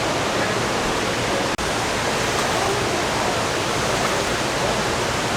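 Waterfall rushing: a steady, loud wash of falling water, with a momentary dropout about a second and a half in.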